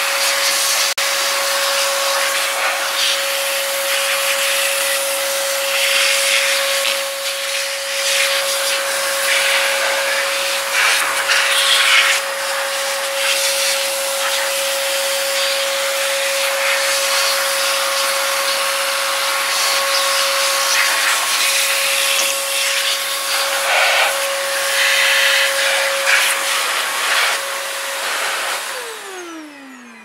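Canister vacuum cleaner running in reverse as a blower, its hose moved to the exhaust outlet, blasting air through a desktop computer case: a steady motor whine under a loud rush of air that changes in tone as the nozzle moves over the parts. Near the end it is switched off and the motor winds down with a falling whine.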